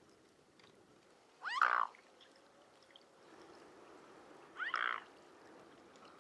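Mute swan giving two short calls, about three seconds apart, each a brief nasal note with a bend in pitch.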